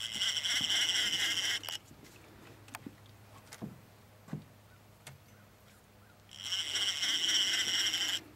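Conventional trolling reel whirring as line is worked on a hooked striped bass, in two spells of a couple of seconds each with a pause of faint clicks between them.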